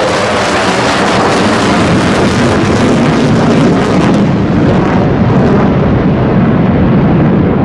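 Military jet aircraft flying past, a loud, steady engine rush whose high end fades from about five seconds in as it draws away.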